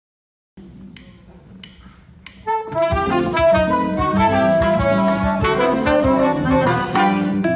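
Recorded instrumental music, a choro arrangement: after a brief silence a few single notes ring out, then at about two and a half seconds a full band with horns comes in and plays on.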